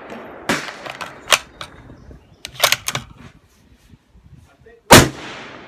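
Bergara HMR Pro bolt-action rifle in 6.5 Creedmoor being worked between shots: a few short metallic clicks and clacks of the bolt. Then one loud rifle shot about five seconds in, with a trailing echo.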